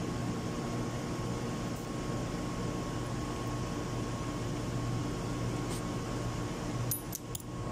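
Steady machinery hum with a thin high whine. Near the end come a few small metallic clicks as steel balls and springs are set into the rotocap body with tweezers.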